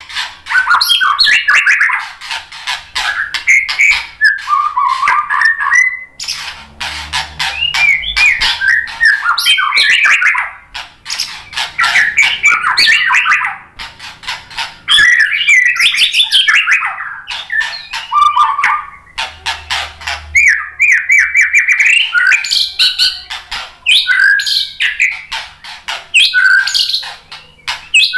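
White-rumped shama singing a long, varied song: whistled phrases mixed with fast rattling, chattering note trains, broken by a few brief pauses.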